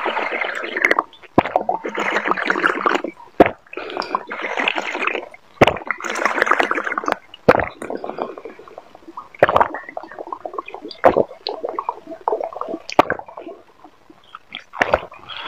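Close-miked slurping and gulping of a drink with jelly pieces and seeds, sucked from a bottle. There are several loud, wet pulls in the first seven seconds, then quieter swallows with sharp mouth and throat clicks.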